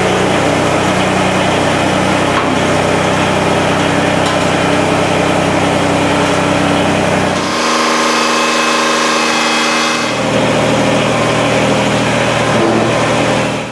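Kubota BX25 compact tractor's three-cylinder diesel engine running steadily while the front loader is worked. About seven and a half seconds in, the engine note shifts higher for a couple of seconds, then settles back to its earlier pitch.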